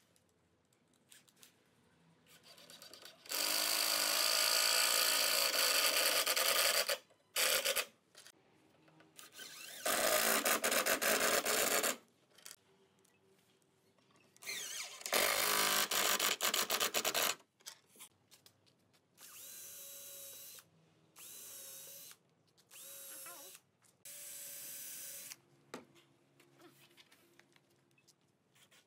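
Cordless drill driving screws into pine boards in several runs: a few loud runs of one to four seconds each, then four shorter, quieter spins with a steady whine near the end.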